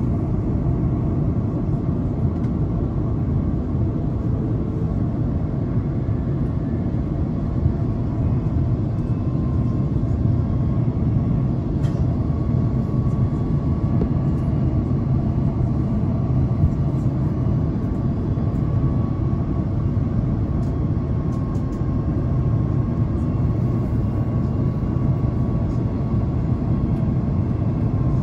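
Steady cabin rumble of an Airbus A330-900neo in flight, with its Rolls-Royce Trent 7000 engines running. A faint steady whine comes in under the rumble about nine seconds in.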